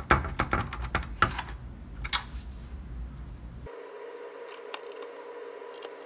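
Light clicks and taps of a hand screwdriver and small screws against an oscilloscope's plastic and metal chassis, thickest in the first second or so and thinning out after. After an abrupt change a few seconds in, a faint steady hum.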